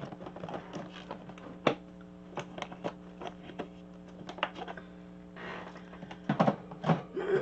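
Irregular clicks and knocks as a clear plastic storage box full of ribbon spools is handled and tilted while someone searches through it. A steady low hum runs underneath.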